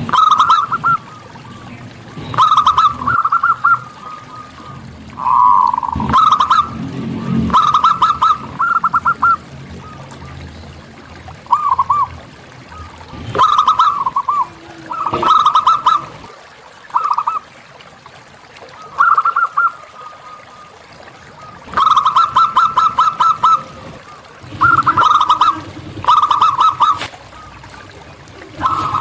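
Zebra doves (perkutut) cooing: short phrases of quick, rattling pulsed notes, repeated every one to three seconds.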